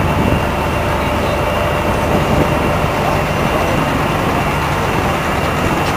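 Heavy diesel engine of a multi-axle transporter carrying a removed rail bridge span, running steadily.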